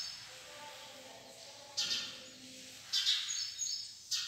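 Chalk writing on a blackboard, three short scratchy strokes about a second apart in the second half, with birds chirping faintly in the background.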